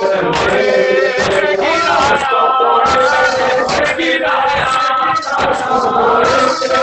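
A man chanting a Shia noha (mourning lament) into a microphone, with a group of men chanting along, over regular sharp chest-beating (matam) slaps.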